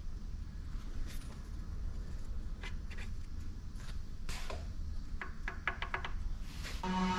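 Light metallic clicks and taps as a new crankshaft bolt is handled and threaded in by hand against the crank pulley, with a quick run of ticks about five seconds in, over a low steady hum. Background music comes in near the end.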